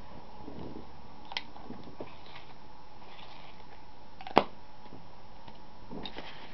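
Steady low room noise with a few light clicks and one sharp tap about four seconds in.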